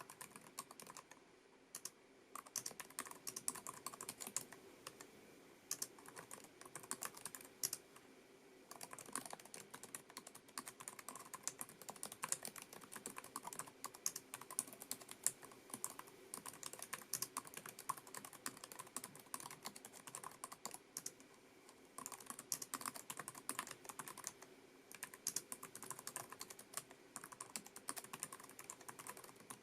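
Typing on a Lenovo ThinkPad TrackPoint Keyboard II, its low-profile scissor-switch keys clicking in quick continuous runs with a few short pauses.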